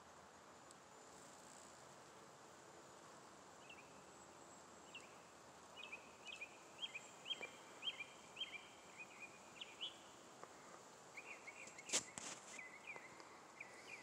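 Faint songbird singing: a run of short, quick chirping notes starting a few seconds in, then another run near the end. A sharp click sounds near the end.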